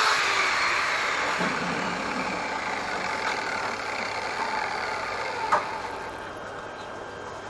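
Angle grinder winding down after a cut through steel tube, its whir fading over several seconds. A single sharp metallic tap sounds about five and a half seconds in.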